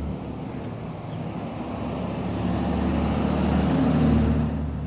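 A motor vehicle driving past on the street, its engine and tyre noise growing louder to a peak about four seconds in, then fading.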